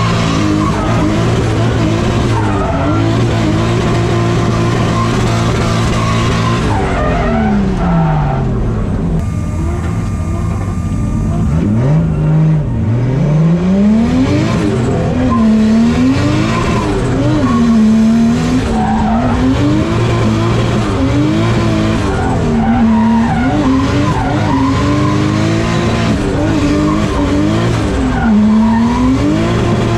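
Drift car engine revving over a steady idling engine, with tyres squealing as the car slides. The revs fall away, climb again, then rise and drop repeatedly every second or so as the throttle is worked through the drift.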